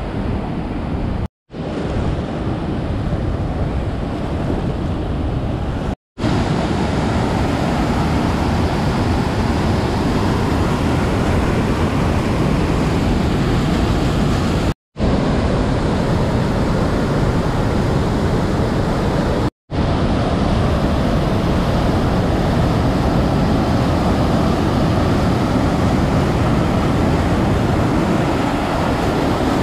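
Rhine Falls waterfall: a steady rushing roar of falling water. The sound cuts out for an instant four times.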